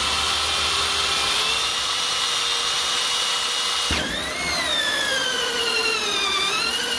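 Electric drill driving a hole saw through the plastic wall of a tub: a steady motor whine that shifts about four seconds in, then sags in pitch as the saw bites before the drill stops near the end, the hole cut through.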